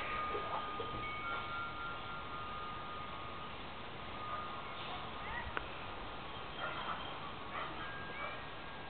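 Wind chimes ringing softly, with several long, steady tones at different pitches overlapping and fading in and out.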